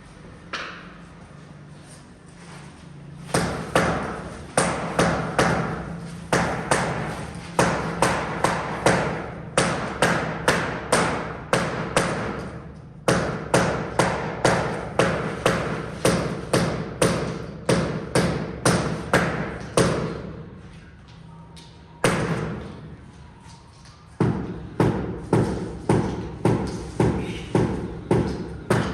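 A mallet taps repeatedly on a large floor tile, bedding it into the adhesive. The strikes come in quick runs of about two to three a second, with short pauses between the runs.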